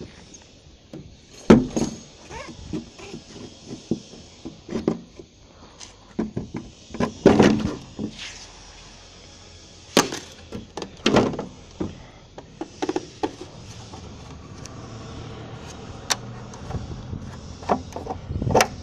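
Irregular knocks, clatters and clicks of a plastic tail-light housing being handled and its bulb socket twisted by hand during a brake-light bulb change.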